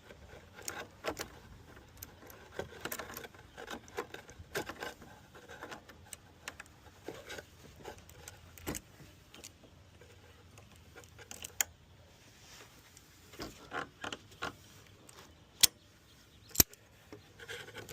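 Scattered light clicks and metallic clinks of car parts and hand tools being handled, with a few sharper knocks near the end.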